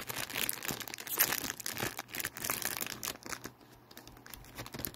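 Plastic snack wrapper crinkling and tearing as it is opened by hand, busiest for the first three seconds or so, then thinning to a few scattered crackles.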